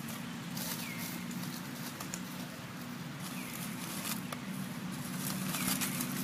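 Dry fallen leaves crackling and rustling with irregular small crackles as something moves through the leaf litter, over a steady low hum. Three short, faint, falling chirps come about a second in, midway and near the end.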